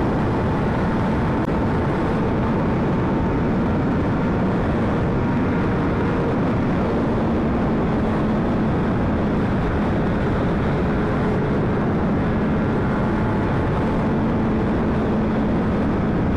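Steady rush of wind and road noise from a sport bike at highway cruising speed, with the 2009 Honda CBR600RR's inline-four engine holding an even note underneath.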